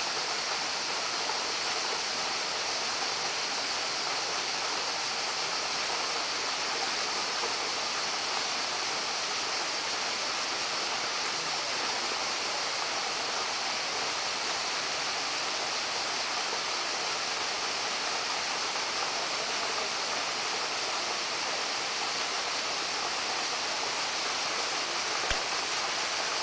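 Steady rush of flowing stream water, unchanging throughout, with one sharp click near the end.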